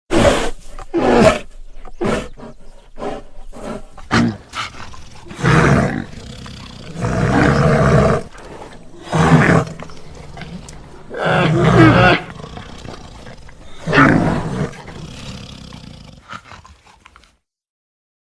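Film sound effects of a giant red panda creature roaring: a string of separate roars, some short and some about a second long, with quieter growling between, fading out near the end.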